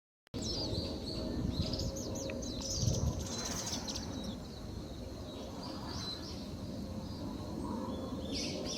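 Small songbirds chirping in quick, high twitters over a steady outdoor background hum. The chirps come thickly in the first few seconds and again near the end.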